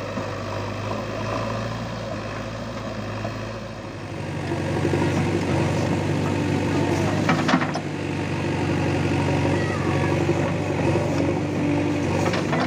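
Diesel engine of a JCB 3DX backhoe loader running steadily under working load. From about four seconds in, while the backhoe arm digs, its hum gets louder and fuller. A couple of sharp knocks come about halfway through and near the end.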